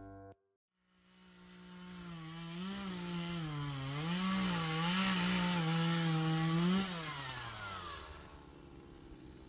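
Chainsaw running at high revs and fading in, its pitch rising and dipping several times, then falling away near the end as the throttle is released.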